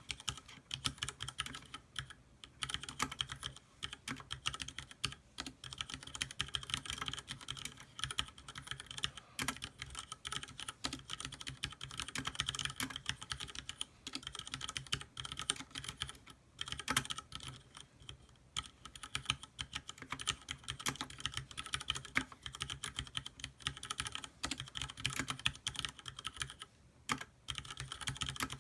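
Continuous typing on a Leopold FC660M compact mechanical keyboard with red switches and PBT keycaps: a fast, steady stream of key clicks, broken by a few brief pauses.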